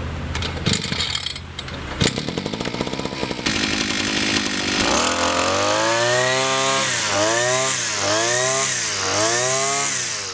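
Nikko Japan NJBC-M-243P brushcutter's 43 cc two-stroke engine running, rough and uneven at first with a couple of sharp knocks. It is then revved up and down about once a second, four or five times, before stopping abruptly.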